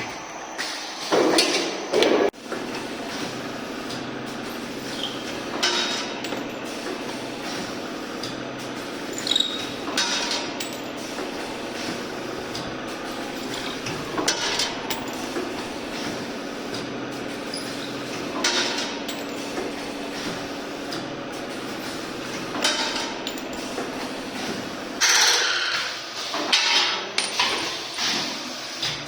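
Double-head tube chamfering machine running with a steady motor hum, broken about every four seconds by a louder burst of metal cutting and clattering as each tube end is chamfered.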